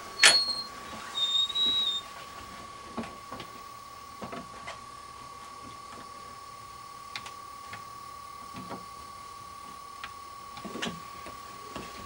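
Metal door-lock hardware being worked: a sharp metallic click with a ringing note at the start, a short high squeak about a second in, then faint scattered clicks, all over a steady high-pitched hum.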